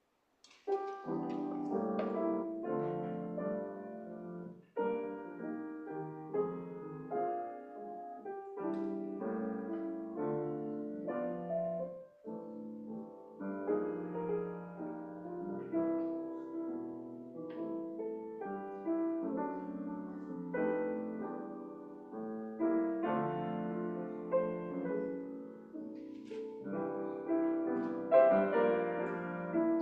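Piano playing chords under a melody, beginning about half a second in.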